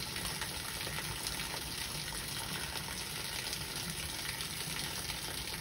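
Heavy rain falling in a steady hiss, with a stream of water pouring off a roof.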